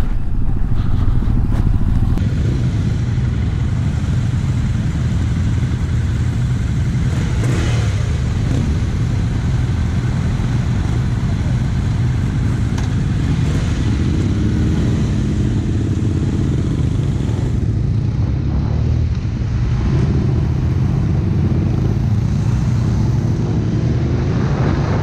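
Motorcycle engines running while riding in a group, a steady low rumble with wind rush on the microphone. The sound changes abruptly about two seconds in and again near 18 seconds.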